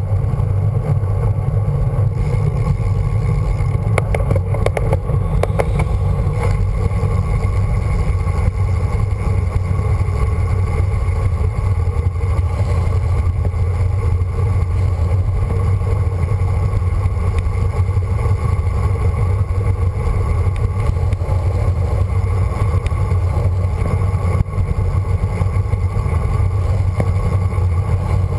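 Steady wind rush and road rumble on a handlebar-mounted camera as a road bike rolls along tarmac, with a short cluster of clicks or rattles about four to five seconds in.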